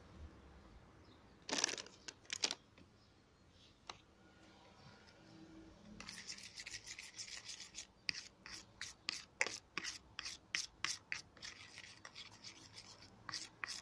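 Metal spoon stirring a thick mixture of dish soap and baking soda in a plastic tub, scraping against the bottom and sides. There are a few strokes about two seconds in, then quick repeated scrapes, two or three a second, from about halfway on.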